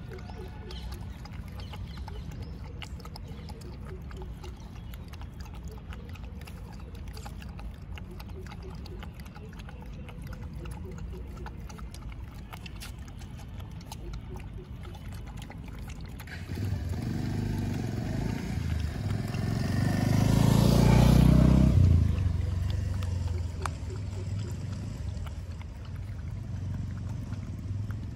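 A dog lapping milk from a plastic bowl, with quick soft wet clicks. About halfway through, a motor vehicle passes on the road, growing louder to a peak and then dropping away within a few seconds.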